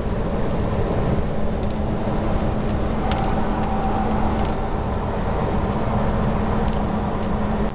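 Inside the cab of a DAF XF articulated truck cruising at about 80 km/h: steady engine drone and road rumble.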